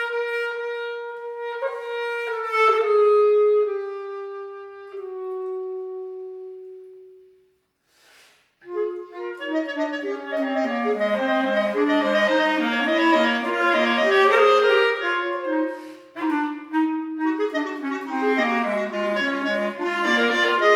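Clarinet music: a slow melody of held notes steps down and dies away about seven seconds in. After a moment's pause the music starts again with several lines sounding together.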